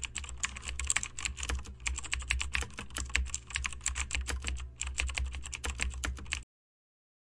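Rapid typing on a computer keyboard, a quick run of many keystrokes a second that stops about six and a half seconds in.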